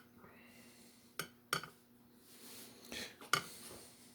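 A few light metallic clinks and taps, about four in all, as small metal parts and clips are handled during nickel plating, over a faint steady hum.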